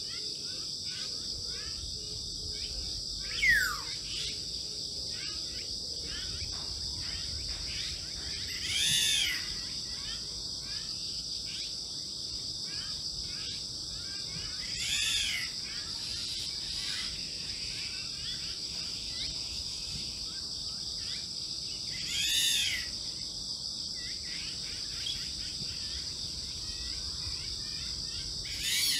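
Field ambience: a steady high-pitched chorus of crickets or similar insects, with a bird call that repeats about every six or seven seconds. A short, sharp falling whistle comes a few seconds in and is the loudest sound.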